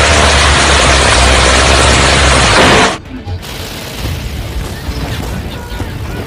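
Warship's deck gun firing, heard as a loud, distorted, unbroken roar with a heavy low rumble, cutting off suddenly about three seconds in. After that comes a movie soundtrack of music with scattered gunfire and impact effects.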